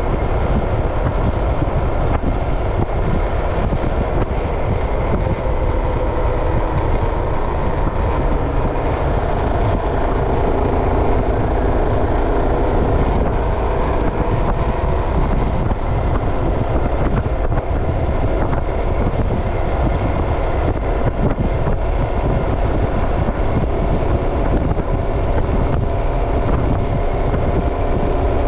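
Steady engine hum and road noise of a vehicle being driven, the engine's pitch drifting a little as it goes.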